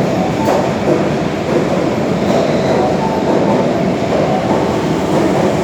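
Osaka Metro Tanimachi Line subway train running, with a steady rumble of wheels on rails.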